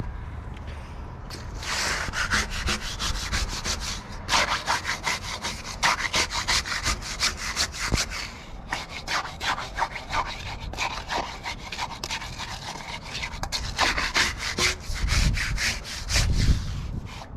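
Rapid, repeated scraping strokes of a hand tool working a stiff concrete mix down into a bollard footing hole, with two short pauses and a low thump near the end.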